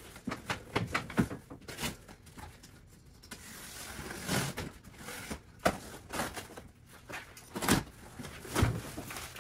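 Large cardboard shipping box being handled on a table top: cardboard scraping and rustling with scattered knocks and thumps, the loudest thump about three quarters of the way through.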